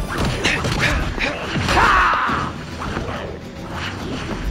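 Action-film fight soundtrack: music under punch and hit sound effects, with a short yelp or cry of pain about two seconds in.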